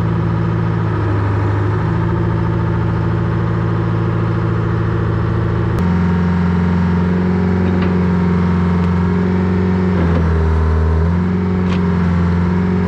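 Old P&H excavator's diesel engine running steadily at working throttle, heard from the cab, with a few faint metallic clicks. Its note shifts abruptly about six seconds in and sags briefly about ten seconds in before recovering.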